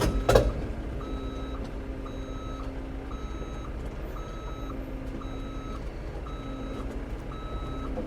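Cat 325 excavator's motion warning alarm beeping steadily about once a second over its diesel engine running.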